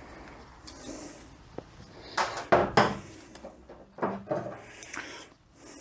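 Workshop handling noises: a few knocks, clatters and scrapes as transmission valve body parts are worked on and moved about on a bench. The loudest clunks come about two to three seconds in, with more about four seconds in.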